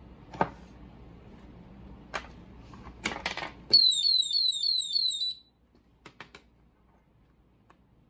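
The HeyShow ESD038 phone anti-theft alarm host sounds its siren: a loud electronic chirp that falls in pitch and repeats about three times a second for about a second and a half, then cuts off suddenly. It is set off by the phone being disconnected from its security cable. Before it there are clicks and rattles from the phone and cable being handled.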